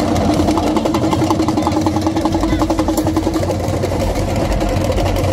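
Fast, even drumming on hand-held drums amid a noisy crowd, with a steady low hum under it that stops after about three and a half seconds.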